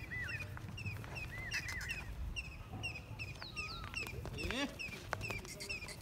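Several birds chirping and calling in quick, repeated short notes, with a few arched calls near the start and around the middle, over a steady low rumble.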